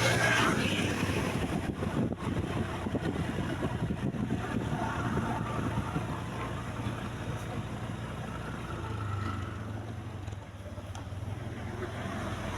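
Tour bus engine running as the bus moves on the road, a steady low drone. It is louder at first, eases off and dips about ten seconds in, then builds again.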